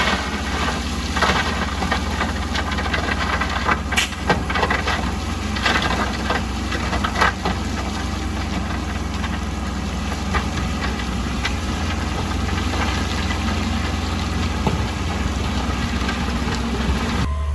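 Heavy construction machine's diesel engine running steadily, with several sharp clanks and knocks in the first half.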